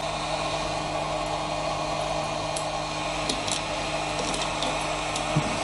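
Heat gun running steadily, an even blowing noise with a fan-motor hum. A few light clicks come from the multimeter test probes being handled.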